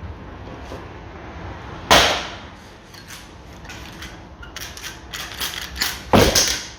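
Hand rivet gun squeezing blind rivets: lighter clicks of the tool's strokes and two sharp, loud snaps, one about two seconds in and one near the end, as the rivet mandrel breaks off once the rivet is set.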